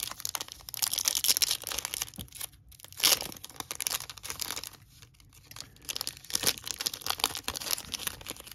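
Foil wrapper of a baseball card pack being torn open and crinkled as the cards are pulled out: a crackling rustle with a couple of brief pauses.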